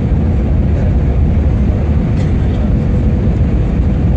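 Jet airliner cabin noise during the descent to land: a loud, steady rumble of the engines and rushing air, heard from inside the cabin, with a faint steady hum above it.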